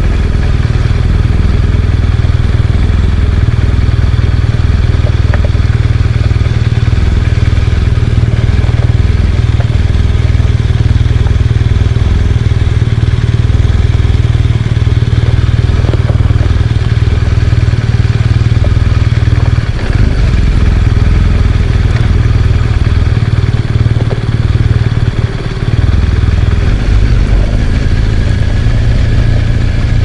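BMW R1200GS Adventure motorcycle riding on a dirt road: its water-cooled boxer-twin engine running under a steady loud rumble, with a brief dip in level about 25 seconds in.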